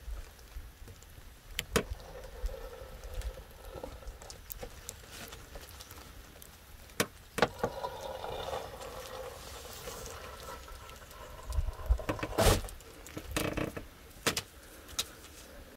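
Hands and a knife working a raw sturgeon on a plastic sheet while the white cord of its notochord is pulled out of the spine: scattered sharp clicks and taps with light rustling, the loudest cluster about twelve seconds in.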